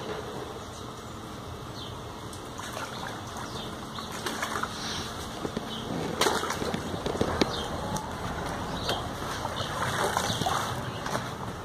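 Irregular splashing and sloshing of water at a lake's surface, in uneven bursts, the sharpest about six seconds in and more around ten seconds.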